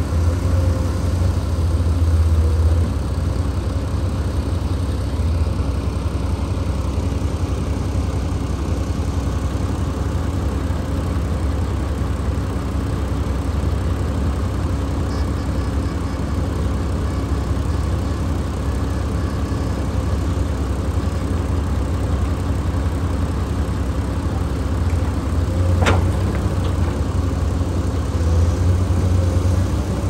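Heavy diesel engines of a Komatsu excavator and a D53P crawler bulldozer running steadily with a low rumble. A single sharp knock comes near the end.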